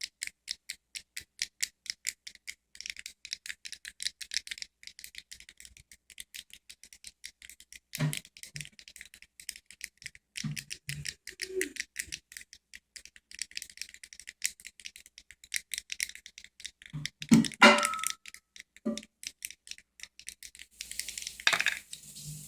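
Fidget cube's pen-style click buttons pressed over and over: a fast run of sharp little clicks, about five a second, broken by a few duller knocks from handling the cube. A steady hiss starts near the end.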